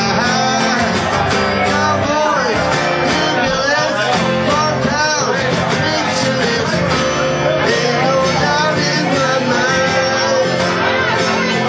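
Live country-rock song from a duo strumming two acoustic guitars, with a man singing the melody into a microphone.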